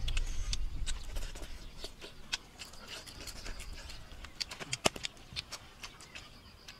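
Eating sounds: scattered clicks and smacks of chewing, and of fingers picking flesh and bones from a grilled fish, with one sharp click about five seconds in. A low rumble runs through the first second.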